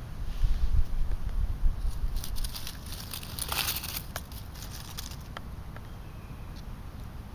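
A few seconds of dense crackling and rustling close to the microphone, over a low rumble of wind in the first two seconds.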